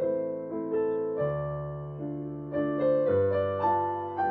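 Background piano music: a melody of single notes over bass notes that change every couple of seconds.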